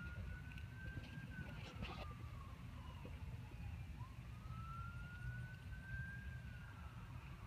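A faint emergency-vehicle siren wailing, its pitch slowly rising and falling through about two cycles, over a low steady background rumble.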